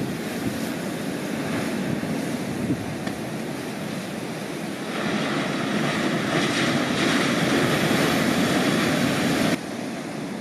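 Atlantic surf breaking and washing in, with wind buffeting the microphone. About halfway through, the hiss of a breaking wave swells louder, then cuts off abruptly near the end.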